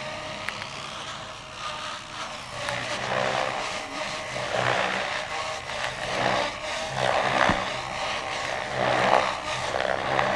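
Goblin 500 electric RC helicopter flying hard 3D manoeuvres. The rotor blades whoosh in repeated swells over a steady low hum from the rotor head and drivetrain.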